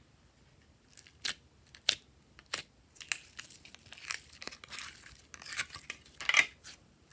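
A few sharp snaps and clicks, then close-up crinkling and rustling, as of plastic or packaging being handled and torn, with the loudest crackle near the end.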